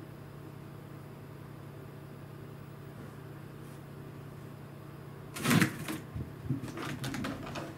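A steady low hum, then a loud burst of knocking and rustling about five and a half seconds in, followed by a scatter of smaller knocks for about a second.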